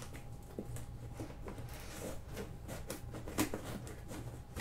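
Scissors cutting along the packing tape of a cardboard shipping box: faint scattered scraping and snipping, with one louder scrape about three and a half seconds in.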